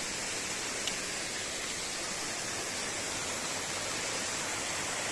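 Small waterfall splashing down over mossy rocks, a steady even rushing of water. A faint tick a little under a second in.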